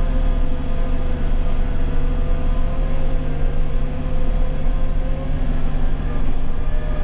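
Backhoe engine running steadily under way as the machine is driven along.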